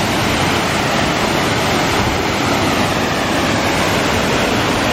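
Waterfall running: a loud, steady, even rush of falling water.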